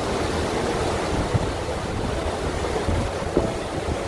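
Wind buffeting the microphone on the open top deck of a moving cruise boat: a rough, gusting rumble over a steady rush of noise.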